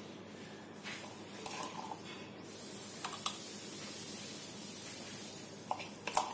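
A spoon clinking and tapping against glass mugs as thick beaten coffee paste is scooped into them: a handful of light clinks, a few with a short glassy ring, the loudest near the end.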